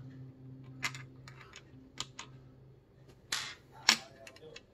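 Several sharp clicks and taps of a CPU air cooler's small mounting hardware, spacers and brackets, being set onto the mounting screws around a motherboard's CPU socket. They come irregularly, the loudest about three and a half to four seconds in, over a faint low steady hum in the first couple of seconds.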